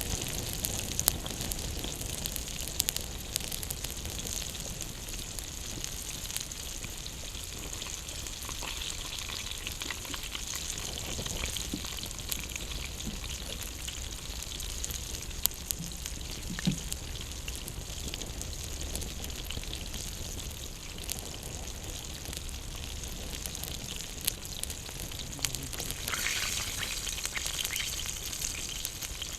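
Open campfire crackling and hissing, with a steady high hiss and frequent sharp pops.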